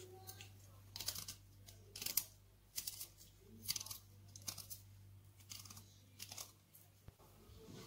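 A small spoon scraping the skin off a piece of fresh ginger root, faint short scrapes about a second apart.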